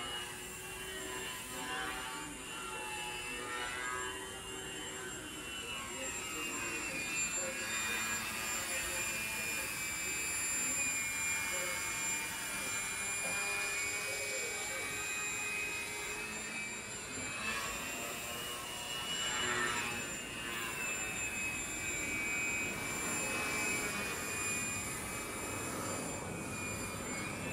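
Electric motor and propeller of a HobbyKing Galaxy 3D foam RC plane whining in flight, the pitch rising and falling with throttle and as the plane sweeps past.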